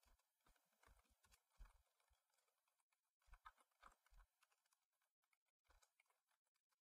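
Near silence with a few faint computer keyboard keystrokes, irregularly spaced.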